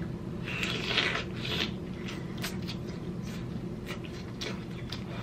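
Close-up sounds of someone biting into and chewing king crab leg meat: a run of crackles and clicks, busiest in the first couple of seconds, then scattered mouth clicks over a steady low hum.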